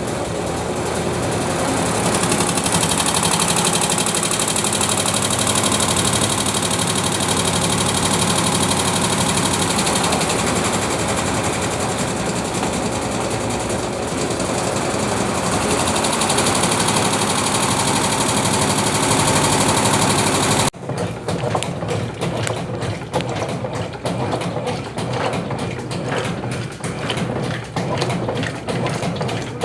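Brastemp Clean 7 kg washing machine running its rinse cycle: a steady rushing noise that cuts off abruptly about two-thirds of the way through, giving way to a choppy, rhythmic churning.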